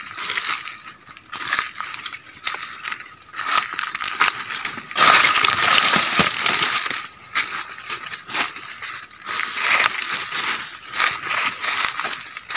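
Footsteps crunching through dry fallen leaves and twigs in undergrowth: a continuous, irregular crackling, loudest about halfway through.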